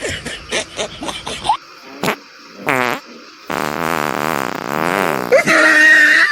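Fart noises: a short buzzy one about two and a half seconds in, then a long wavering one lasting about two seconds. Louder music and voices come in near the end.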